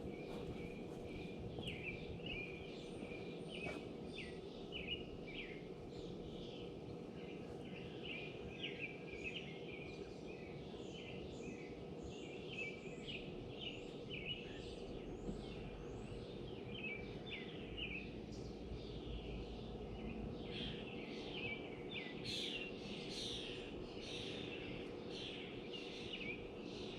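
Songbirds chirping and calling: many short, quick chirps overlapping throughout, busier toward the end, over a steady low background rumble and faint hum.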